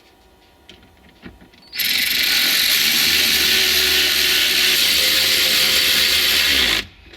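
Handheld power driver running steadily for about five seconds, driving in one of the 7 mm bolts, then winding down and stopping. A few light clicks come before it.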